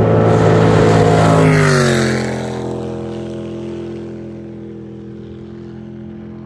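Racing jet boat's engine passing at speed: loud as it goes by, its pitch drops sharply about two seconds in, then it fades away as the boat runs off.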